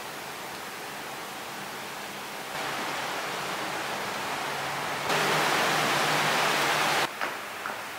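Wind and rain outdoors making a steady hiss that gets louder in two steps, about two and a half seconds in and about five seconds in, then drops off suddenly near the end.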